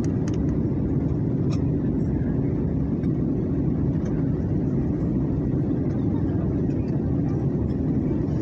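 Airliner cabin noise in flight: a steady, even low rumble of engines and airflow, with a few faint small clicks.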